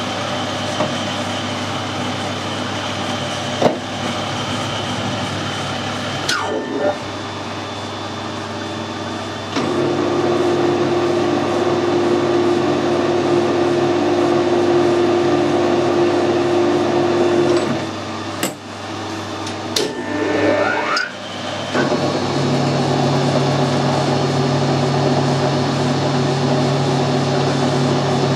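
Metal lathe running with a four-jaw chuck turning while a tap held from the tailstock cuts a 3/8 BSP thread in a steel fitting. The steady machine hum gets louder about ten seconds in, dips and shifts in pitch around eighteen to twenty-one seconds as the spindle speed changes, then runs steady again, with a few sharp clicks along the way.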